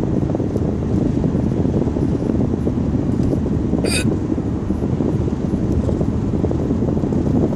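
A single short hiccup about four seconds in, over a steady low rumble of background noise.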